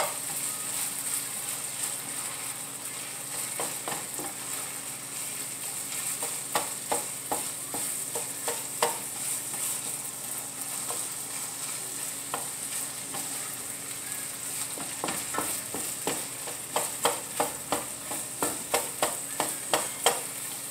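Ground pork sausage sizzling as it browns in a frying pan, with a steady hiss. A wooden spatula scrapes and knocks against the pan in quick runs of taps, busiest in the second half.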